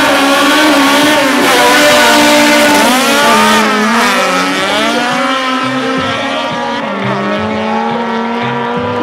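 Race car engines revving hard as drag cars launch down the strip. The pitch climbs and drops with the gear changes, then holds steadier as they pull away.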